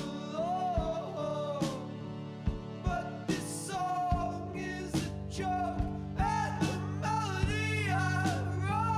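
Background song: a singing voice over a steady beat with sustained low notes.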